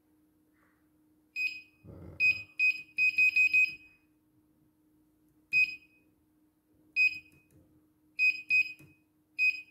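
CNY embroidery machine's control panel giving short high key-press beeps as the list of designs read from a USB flash drive is scrolled. About a dozen irregularly spaced beeps include a quick run of five about three seconds in. A faint steady hum runs underneath.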